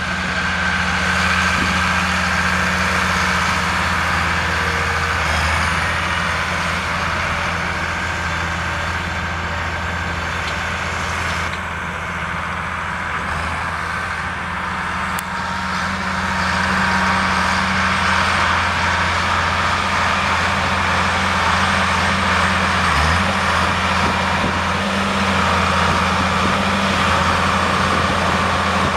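Case IH 9230 4WD tractor's Case 6TA8.3 six-cylinder diesel engine running steadily as the tractor drives, growing louder about halfway through as it comes closer.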